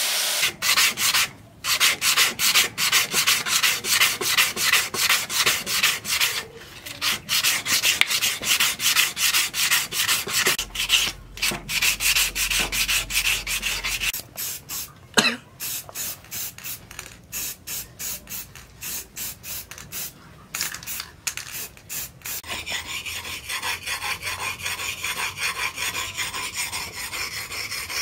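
Sandpaper rubbed by hand along a steel wood-carving chisel in quick, repeated back-and-forth strokes. Near the end the strokes change to a steadier scrape as the chisel's blade is honed on a whetstone.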